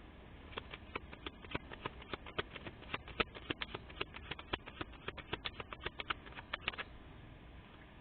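A rapid, irregular run of sharp clicks or taps, several a second, starting about half a second in and stopping near the end.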